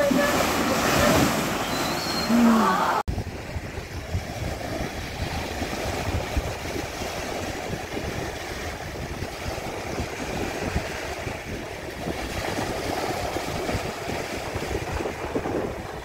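A few seconds of children's voices at play, then, after an abrupt cut, wind buffeting the microphone over the steady wash of small sea waves.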